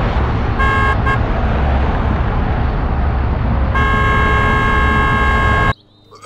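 Car horn giving two short toots, then one long blast, over a loud, steady rumbling noise. Everything cuts off suddenly near the end.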